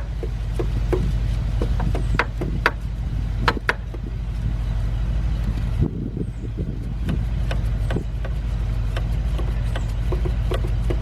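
Ratchet and socket clicks and metal tool knocks, sharp and irregular, as a bolt is tightened in the engine bay, over a steady low hum.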